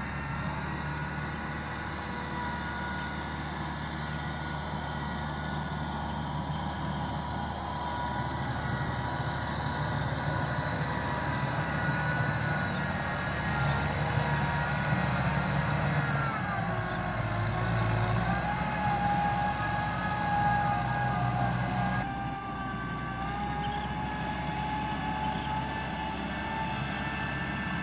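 Farm tractor's diesel engine running under load as it works through deep mud, a steady drone with a whining tone above it. The pitch drops about two thirds of the way through and shifts again shortly after.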